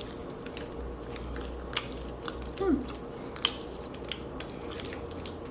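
A plastic energy-bar wrapper being worked open: scattered crinkles and small clicks.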